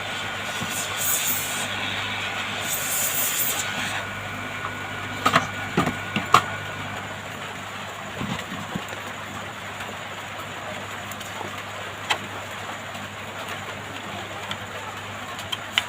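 Hot air rework station blowing with a steady whirring hiss while a phone display is heated and pried off. A few sharp clicks and taps of tools on the phone come about five to six seconds in, again around twelve seconds and near the end.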